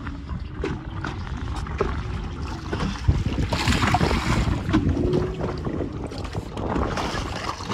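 Wind rumbling on the microphone aboard a boat at sea, with water washing against the hull and the boat's motor running underneath. A louder rush of water spray comes about three and a half seconds in.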